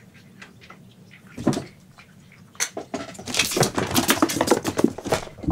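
Cats moving about among cardboard scratchers, claws and paws scrabbling and knocking. A single thump comes about a second and a half in, then a dense run of scratching and knocking for about two and a half seconds, with one more knock at the end.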